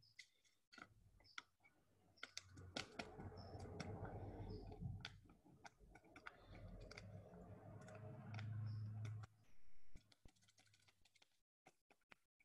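Faint crinkling and clicking of a paper packet of baker's yeast being handled, tapped and shaken out by gloved hands. A faint low hum runs through the middle and cuts off a little past three quarters of the way.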